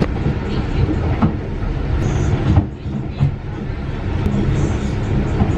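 Yacht under way, heard from inside its cabin: a steady low rumble with scattered knocks and rattles as the boat moves.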